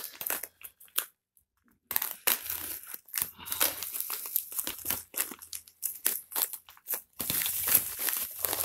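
White plastic courier mailer being torn open and handled, the plastic crinkling and rustling in irregular spurts. It goes quiet for about a second near the start, then crinkles almost continuously, loudest near the end as the bag is pulled open.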